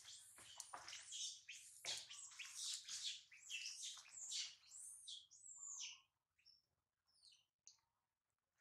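Baby macaque screaming in a run of high-pitched squeals that rise and fall, loudest over the first five seconds, then dying off into a few fainter, shorter squeaks.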